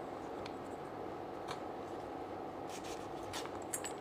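Faint handling noises from a laptop charger's power cord and its inner wires: a few light clicks and rubs as the wires are pulled and separated by hand, over a steady background hum.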